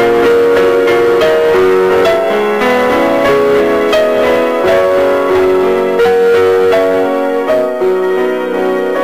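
Instrumental background music led by piano, playing a slow line of held notes over chords.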